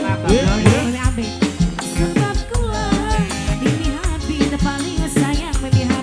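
Live dangdut band music: a singer's voice bending through a melody over drums, bass and keyboard.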